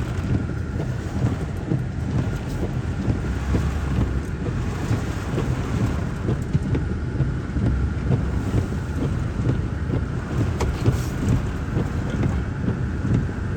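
Strong gusty wind from the tornado's storm buffeting the microphone and truck: a steady, fluttering low rumble with rushing hiss over it.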